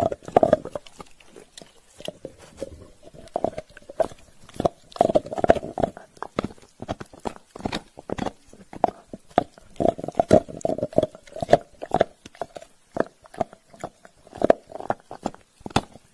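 Pembroke Welsh corgi gnawing and crunching on a chew treat held in a hand: many quick crunching clicks, with repeated short throaty sounds from the dog between bites.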